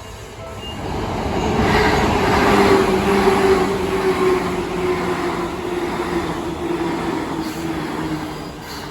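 An electric train of the Seibu Haijima Line passes over a level crossing: the rumble and rush of the wheels build up over the first second or two, peak, and then ease off, with a steady hum that slowly falls in pitch. The crossing's warning bell dings about twice a second at the start, before the train drowns it out.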